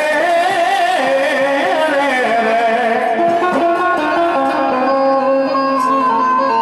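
Devotional folk music: a wavering, ornamented melody line that gives way about halfway through to steady held notes.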